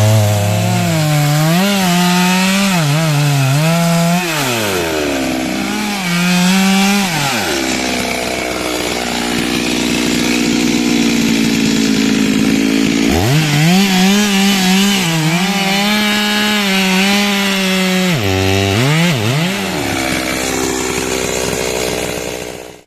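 Two-stroke Stihl chainsaw cutting wood, its engine note dropping as the chain bogs in the cut and climbing again as it revs free, over and over. A long stretch at high revs in the middle, and the saw stops abruptly at the end.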